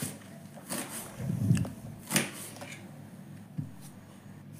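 Kitchen knife chopping spring onions on a hard countertop: several separate sharp cuts knocking against the counter, spaced unevenly about half a second to a second apart.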